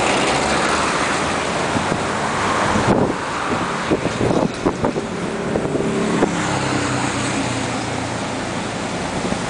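Blackpool double-deck tram running away along the promenade track, its motor humming steadily, with a run of clicks and knocks in the middle and wind on the microphone.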